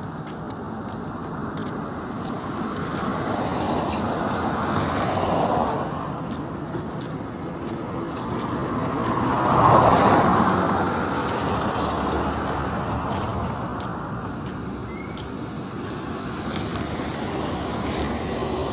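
Road traffic noise: motor vehicles passing, with one passing loudest and closest about ten seconds in.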